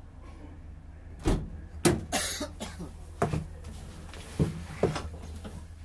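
A series of sharp knocks and clunks, about seven spread irregularly, with a brief hiss about two seconds in, over a low steady hum.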